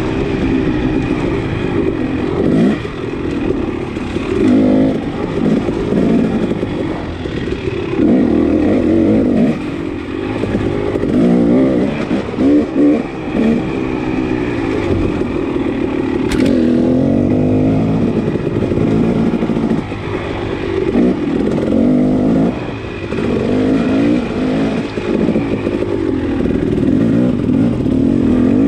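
KTM dirt bike engine pulling under load up a rough dirt trail, the revs rising and falling over and over as the rider works the throttle. A single sharp click sounds about sixteen seconds in.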